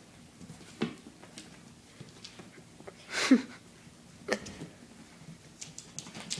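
Scattered light knocks and taps, a cat's paws scrambling on a hard floor, with one short vocal sound falling in pitch a little after three seconds in.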